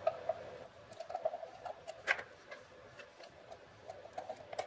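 Light, irregular clicks and ticks of small hard objects, with a sharper click about two seconds in.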